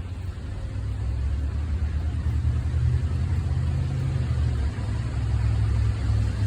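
A low rolling rumble of distant thunder builds and holds over the steady hiss of rain.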